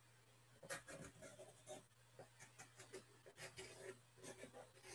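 Faint pastel strokes scratching on paper: a quick, irregular run of short strokes starting about a second in, as branches are drawn in.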